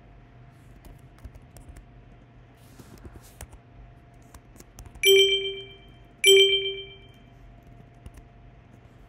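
Computer keyboard typing in light scattered clicks, then two loud computer alert chimes about a second apart, each ringing out and fading over roughly a second.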